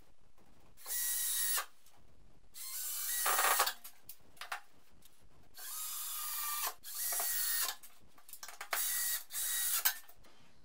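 Cordless drill driving screws into a wall, run in about five short bursts of roughly a second each with pauses between.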